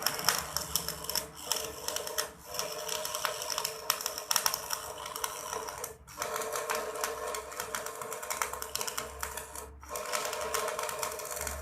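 Welding arc crackling in a fast, dense patter of tiny pops, stopping briefly about four times and striking up again.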